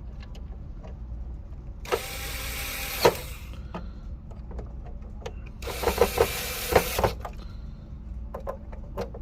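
An electric screwdriver whirring in two short bursts, about two and five seconds in, driving screws while a PlayStation 5 is put back together, with small clicks of parts and tools in between.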